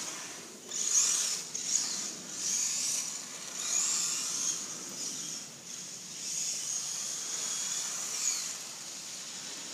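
Traxxas 1/16 Slash VXL RC truck's tyres hissing through standing water on wet pavement, in repeated swells as it drives back and forth past the camera, with its brushless motor's whine rising and falling now and then.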